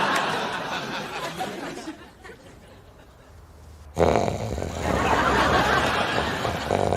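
Studio audience laughter dies away over the first two seconds, then a lull. About four seconds in, a man's loud, deep snore starts suddenly, with the audience laughing over it.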